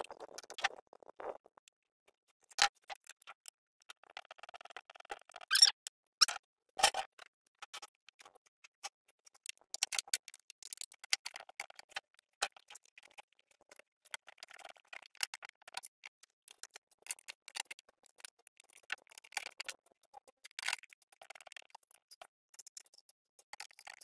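Scattered clicks and taps of a screwdriver and the sheet-metal cover of a portable generator as the cover is fitted and screwed back on, with a few brief bursts of scraping and rattling.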